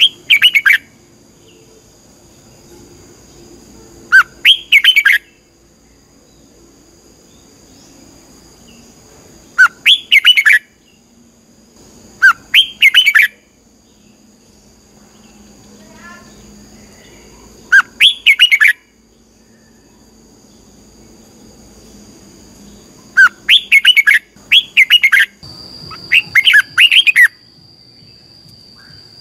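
Red-whiskered bulbul singing short, loud, quick warbling phrases a few seconds apart, about eight in all, with a steady high insect drone behind them that grows louder near the end.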